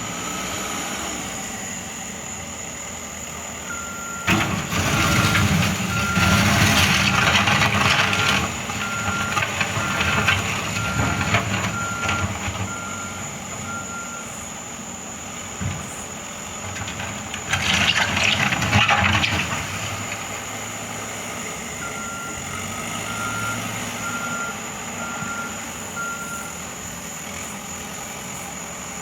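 A truck's reversing alarm beeps at an even pace in two spells, about four to fourteen seconds in and again from about twenty-two to twenty-six seconds, over a running truck engine. Louder rushing surges come from about four to eight seconds in and again around eighteen seconds.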